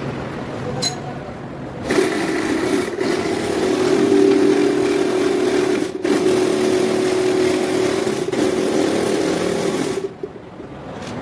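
A motor-driven workshop machine runs steadily with an even hum for about eight seconds, starting about two seconds in and cutting off sharply near the end.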